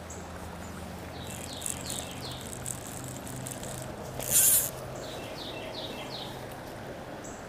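A songbird calling in two short runs of quick falling whistled notes, a few seconds apart, over a faint steady rush of noise. About halfway there is a brief loud hiss, the loudest sound.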